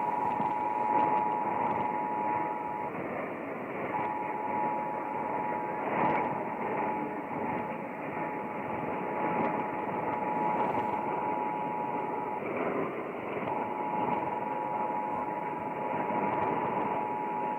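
Emergency Alert System attention signal: the steady two-tone alert (853 and 960 Hz) over a broadcast radio feed with heavy hiss. The tone breaks off briefly about three seconds in and again about twelve seconds in, then resumes.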